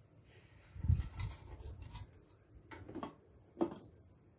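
Plastic cover of a juice extractor being set down onto its base and fitted into place: a dull knock about a second in, then several sharper plastic clicks and knocks as it is seated.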